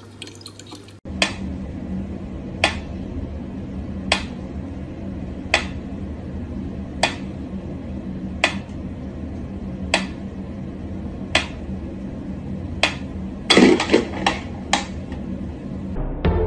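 Mechanical pyramid metronome ticking slowly, one sharp tick about every second and a half over a steady low hum. Near the end a quick run of several extra clicks and knocks breaks the beat.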